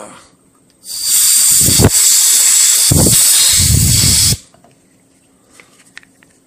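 Can of compressed air with a straw nozzle blowing chips and oil out of a freshly tapped set-screw hole in an AR-15 lower receiver: one loud, steady hiss starting about a second in and lasting about three and a half seconds, with low buffeting under it.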